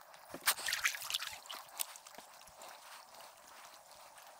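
Faint trickling and dripping of water at a kayak, with a cluster of small splashes and light ticks in the first second and a half, then only a faint patter.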